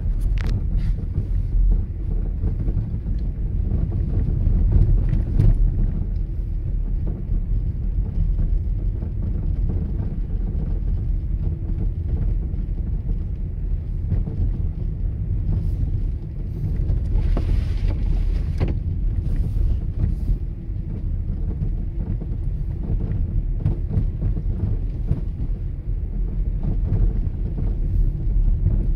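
Inside a moving car: a steady low rumble of engine and tyres on the road, with a brief louder hiss a little past halfway through.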